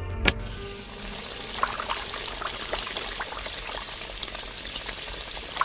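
A sharp click near the start, then a steady rush of splashing water with faint scattered ticks.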